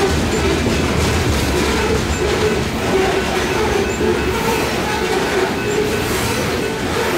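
Loaded coal hopper cars rolling past at close range: a steady rumble of steel wheels on rail, with an on-and-off squeal from the wheels.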